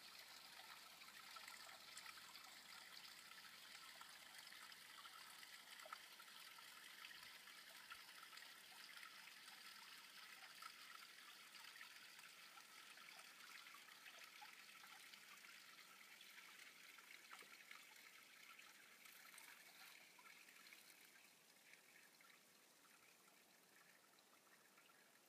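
Faint, steady trickling and babbling of river water, with many tiny splashes, growing a little quieter near the end.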